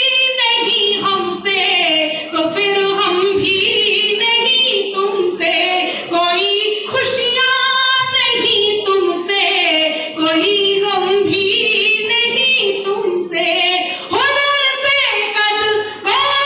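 A woman singing a poem solo into a microphone, in long held notes that slide and waver, phrase after phrase with short breaths between.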